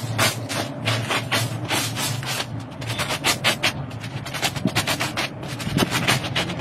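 Stiff-bristled push broom scrubbing a wet rug on snow in quick back-and-forth strokes, about four a second, each a short rasping scrape, over a steady low hum.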